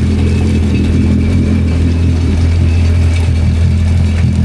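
Yamaha FZS jet ski's supercharged four-stroke engine idling steadily while it is being flushed with fresh water after a ride.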